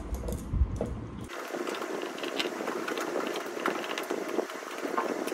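Rustling and crackling of things being handled and packed into a suitcase, a dense patter of small clicks. The sound changes abruptly about a second in, losing its low end.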